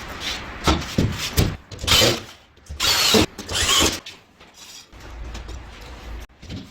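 Mechanical handling noise: several sharp clicks and knocks, then two longer scraping, ratcheting rattles about two and three seconds in.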